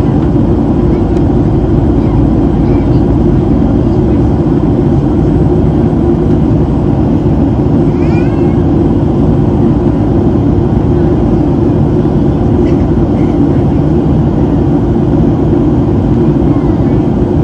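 Steady cabin roar inside a Boeing 737-700 in flight: the engine and airflow noise holds even throughout. A faint, brief high-pitched squeak comes about eight seconds in.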